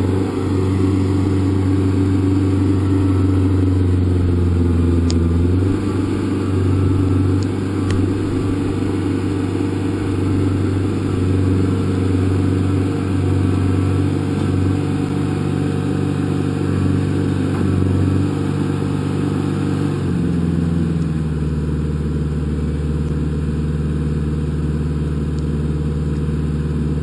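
Kubota backhoe's diesel engine running hard as the stuck machine is worked to get itself out of the mud. Its pitch rises and falls over and over, then drops to a lower, steady note about twenty seconds in.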